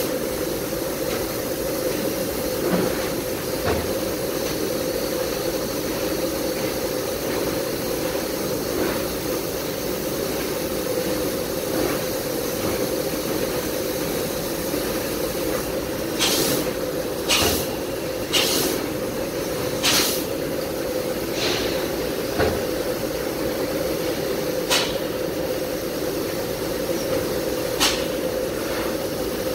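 Mitsubishi CNC laser cutting machine at work on 1.6 mm sheet metal: a steady machine hum with hiss. From a little past halfway, a string of short, sharp hisses comes about every one to two seconds.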